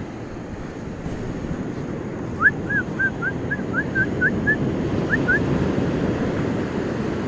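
A puppy whimpering in a run of about ten short, high whines, some rising, starting about two and a half seconds in and lasting about three seconds. Beneath it is a steady low rush of wind and surf.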